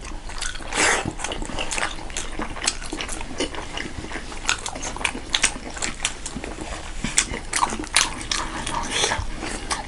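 Close-miked eating sounds: thukpa noodle soup being slurped and food chewed, with many irregular wet smacks and sharp clicks throughout.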